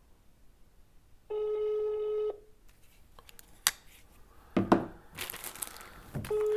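Telephone ringing tone of an outgoing call from a phone on speakerphone: a steady low beep about a second long, then the next one starting near the end, while the call waits to be answered. Between the beeps there are a click and rustling handling noises.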